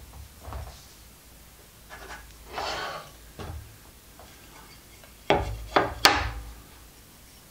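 Wooden strips being handled on a wooden tabletop: small knocks, a rubbing scrape a few seconds in, then two loud sharp knocks as the strips are set down.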